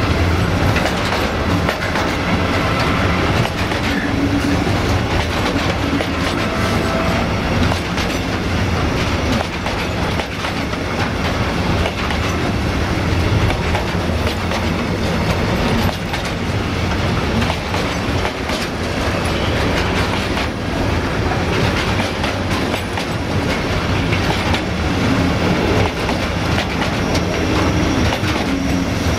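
Container freight train's flat wagons rolling past: a steady heavy rumble of wheels on rail, with clickety-clack as the wheels cross the rail joints.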